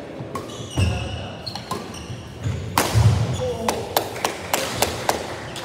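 Badminton doubles rally: a string of sharp racket hits on the shuttlecock, coming faster in the second half, with shoes squeaking and feet thudding on the court floor.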